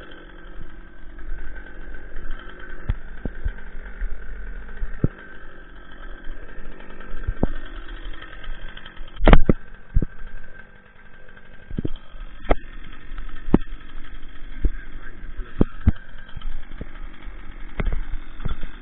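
An engine idling steadily, under irregular sharp cracks of twigs and branches snapping underfoot. One loud crack comes about nine seconds in.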